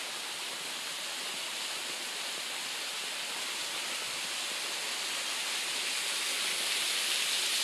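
Small waterfall spilling over rocks: a steady rushing splash that grows slightly louder near the end.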